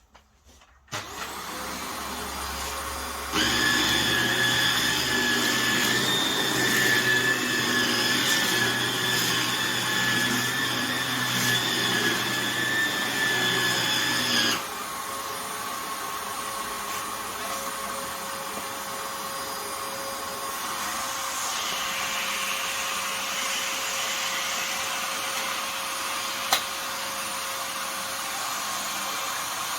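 Vax Air Lift 2 Pet upright vacuum cleaner running steadily, louder with a high whine for about eleven seconds in the first half, then settling to a quieter steady hum. A single sharp click sounds near the end.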